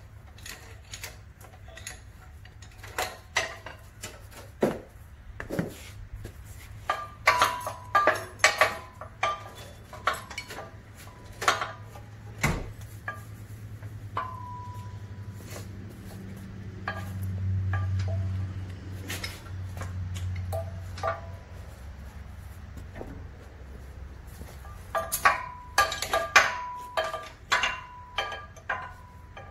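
Irregular metallic clanks and clinks, some ringing briefly, from an engine hoist's chain and the engine and transaxle hanging from it being lifted out of the car. A low rumble swells up and fades about halfway through.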